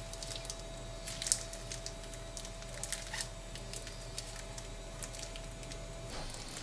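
Soft wet squishing and scattered small crackles as gloved hands peel the thin membrane off raw liver, over a faint steady hum that stops near the end.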